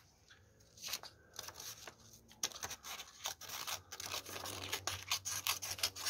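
Small spring-loaded scissors of a Kaliber T17 multitool snipping through a sheet of paper, a run of many short cuts starting about a second in.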